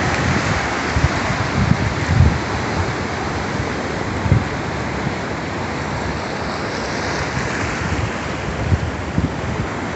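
Sea surf washing steadily onto a sandy beach, with wind buffeting the microphone in irregular low gusts.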